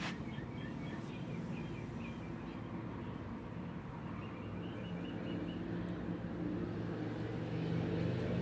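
Low, steady engine rumble that grows somewhat louder over the last few seconds, with birds chirping in short runs twice.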